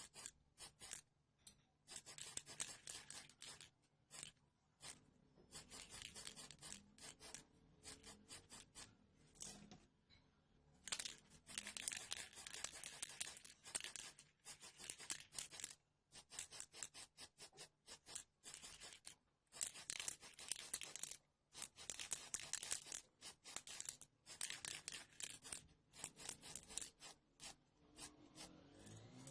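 Rapid, scratchy back-and-forth strokes of hand work scraping or abrading a small hard part of a model truck, in runs of a second or two with short pauses between.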